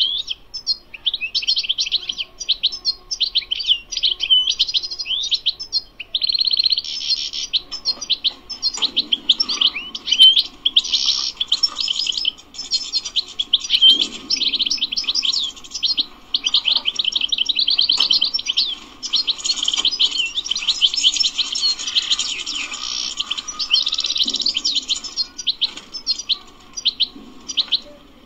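European goldfinch singing: a long run of fast, high twittering trills and chirps with only brief pauses.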